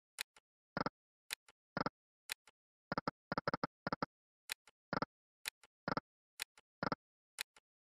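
Reel-stop sound effects of the EGT 'Extremely Hot' online slot game: short electronic clicks, about two a second, as the reels of quick successive spins stop one after another, with no win jingle.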